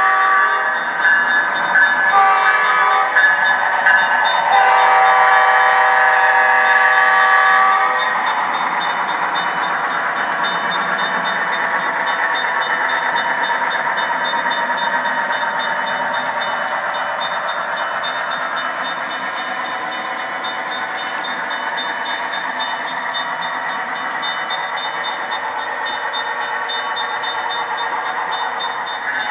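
A diesel locomotive's multi-note chord horn sounds in several blasts, the last a long one of about three seconds that ends about eight seconds in. After it, the train runs on with a steady, noisy rumble.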